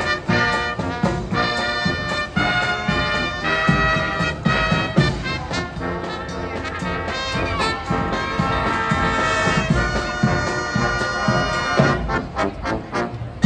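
Brass-led instrumental music in a swing style, with trumpet and trombone lines.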